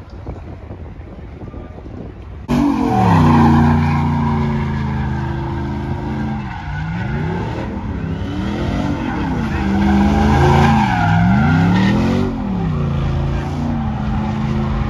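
Truck doing a burnout: the engine is held at high revs with the tyres spinning and squealing. It starts abruptly about two and a half seconds in, and the revs dip and climb back several times.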